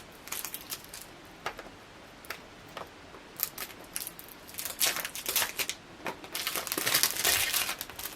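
Plastic shrink-wrap being picked at and peeled off a new, sealed 8mm videocassette: scattered small clicks and crackles, then a dense run of crinkling in the second half as the wrapper comes away.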